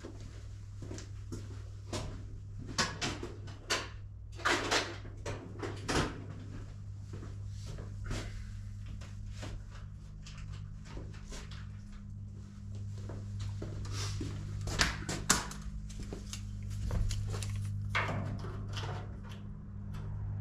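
Scattered clicks, knocks and scrapes from tools and metal being handled on a workbench, over a steady low hum.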